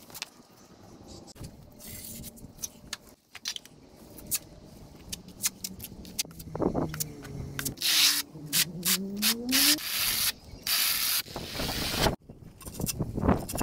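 Steel trowel spreading tile adhesive on a concrete slab: clicks and scrapes that build into long scraping strokes as a notched trowel combs the adhesive, with a short break near the end.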